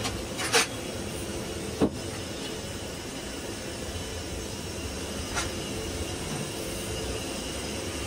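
Steady tyre-shop background hum with three sharp metallic clicks, about half a second, two seconds and five and a half seconds in, as a tyre lever works a new all-terrain tyre's bead onto an 18-inch alloy rim on a tyre changer.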